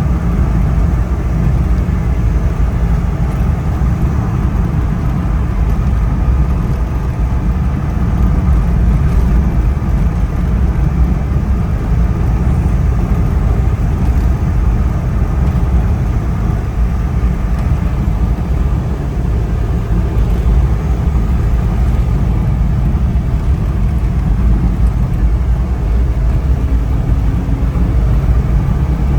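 Steady low rumble of a moving vehicle: road and engine noise, even throughout.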